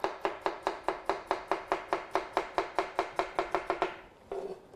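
Chef's knife rapidly slicing an onion into thin julienne strips on a plastic cutting board, an even run of about seven or eight cuts a second that stops about four seconds in.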